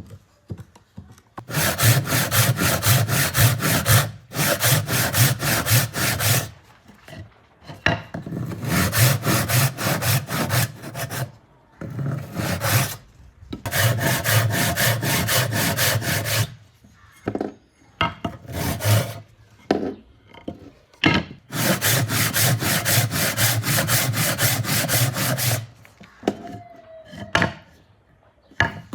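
A hand saw cutting cedar wood with quick, even back-and-forth strokes. The strokes come in runs of a few seconds, with short pauses between runs.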